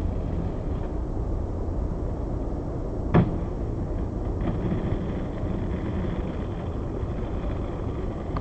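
Skateboard wheels rolling on pavement with a steady rumble, broken about three seconds in by one sharp clack as the board lands, then rolling on.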